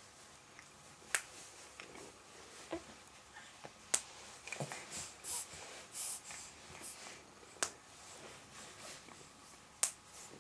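Soft rustling and snuffling breaths from a young baby lying on a changing mat, with a handful of sharp clicks spread through.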